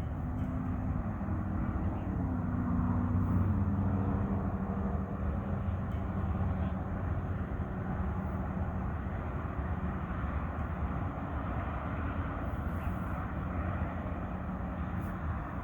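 An engine running steadily, its pitch dropping in a few steps in the first seconds and then holding.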